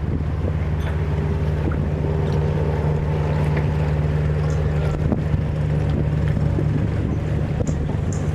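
A fishing boat's engine running steadily, a low even drone with no change in speed.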